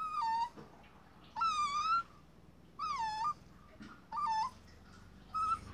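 Young puppy whining in a run of five high-pitched cries, each about half a second long and roughly a second apart, the pitch swooping up and down within each cry.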